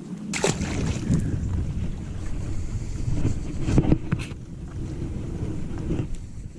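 Wind buffeting the microphone on a fishing boat, with water moving around the hull and a few sharp knocks.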